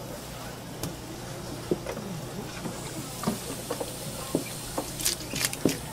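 Tap water running and splashing onto a parrotfish on a cutting board as it is rinsed. The water starts about halfway through, with a quick run of splashes and knocks near the end.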